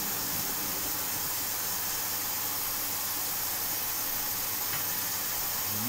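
A steady, even hiss with no change in level or pitch.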